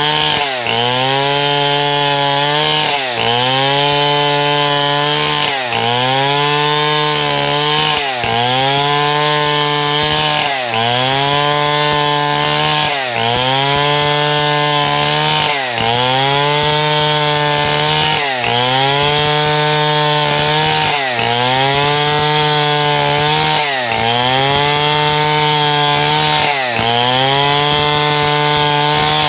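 Stihl MS070 two-stroke chainsaw running at high speed under load in wood. Its engine pitch sags sharply and recovers about every two and a half seconds, about a dozen times in a row.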